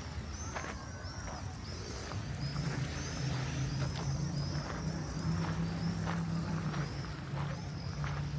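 Birds chirping over and over in short, high calls, with a steady low engine hum coming in about two seconds in.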